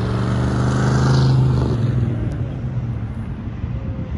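Pickup truck driving past on the road, its engine and tyres loudest about a second in and then fading as it moves away.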